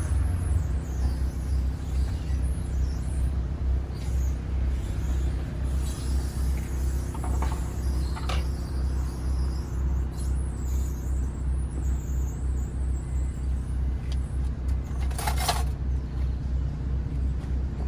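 A motor vehicle engine running with a steady low rumble and an even pulsing beat. Brief sharp sounds cut in about 7 and 8 seconds in, and a louder short hiss or knock comes about 15 seconds in.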